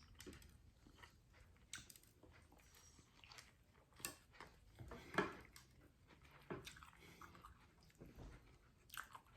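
Faint chewing and mouth sounds of a person eating a chicken sandwich, with a few short, sharp bites or smacks scattered through, the loudest about halfway.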